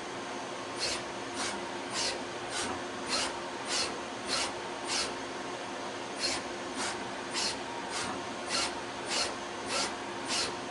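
Citizen Cincom M32 CNC lathe running with a steady hum, and short scraping cuts coming nearly twice a second in two runs with a pause of about a second between them.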